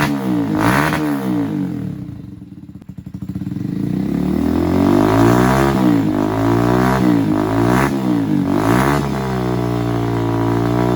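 Honda XR150's single-cylinder four-stroke engine running through a homemade test pipe: the revs drop to a low idle about two seconds in, then rise and fall in a series of throttle blips, settling to a steadier idle near the end.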